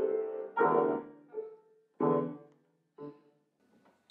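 Grand piano played slowly: a held chord fades out, then single chords are struck about a second apart, each ringing and dying away, the last one softer.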